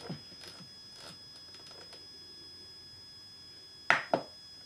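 Two sharp clicks about a quarter second apart near the end, over a faint steady high whine, with a few fainter clicks near the start.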